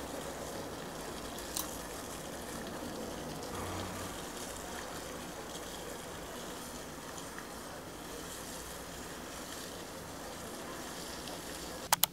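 Steady background hiss, with a faint click about one and a half seconds in and two sharp clicks close together near the end.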